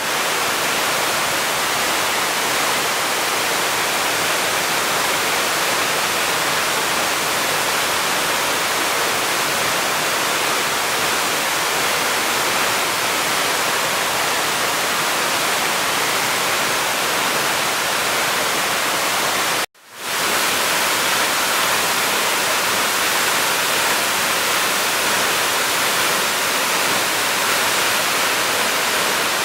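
A 23-metre waterfall with a heavy flow of water, making a loud, steady rush; the sound cuts out for a moment about twenty seconds in and then resumes unchanged.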